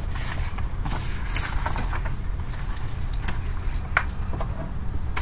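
Small clicks and scrapes of wire pigtails and rubber grommets being pushed into a plastic coil-pack harness connector, the sharpest click about four seconds in, over a steady low rumble.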